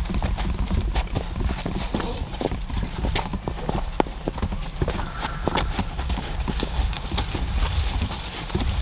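Footsteps of people walking across grass and dirt, with irregular knocks as a cedar wall frame is carried, over a steady low rumble of wind buffeting the microphone.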